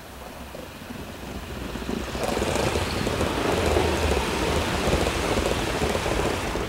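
Gauge 1 model train of coaches running past at track level, its wheels rolling on the rails as a noisy rumble that grows louder about two seconds in as the coaches come close.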